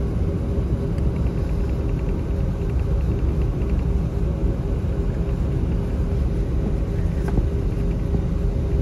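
Airliner cabin noise in an Airbus A320-232 with IAE V2500 engines: a steady, loud, deep rumble with two held engine tones running through it.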